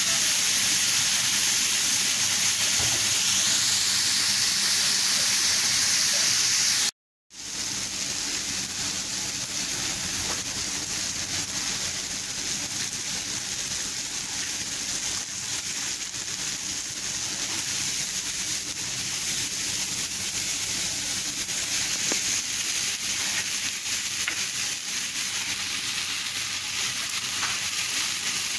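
Chopped tomatoes and onions sizzling in a hot frying pan, a steady hiss that cuts out briefly about seven seconds in and then carries on a little quieter.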